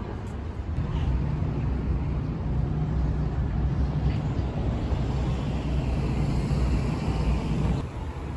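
City street traffic: a steady low rumble of vehicle engines with road hiss. It swells about a second in and cuts off abruptly near the end.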